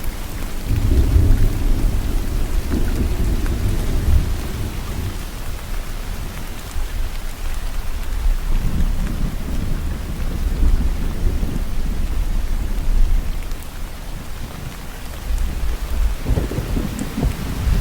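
Steady rain falling, with rolling thunder rumbling low underneath in three long swells: one about a second in, one from about eight seconds, and one near the end.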